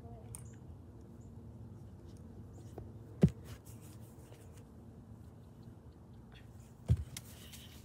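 Two short, dull thumps about three and a half seconds apart, over a faint steady outdoor background.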